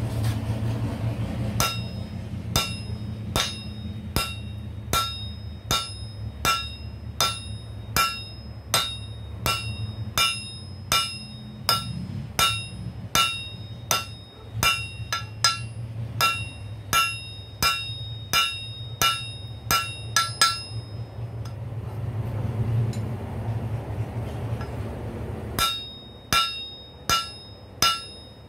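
Hand hammer striking a red-hot rail spike on a steel anvil, about one and a half blows a second, each with a bright metallic ring. The blows stop for a few seconds about three-quarters of the way through, then start again faster. A steady low hum runs underneath.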